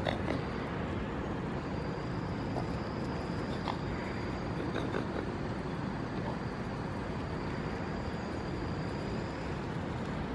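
A steady low background rumble with a few faint short clicks and no clear calls.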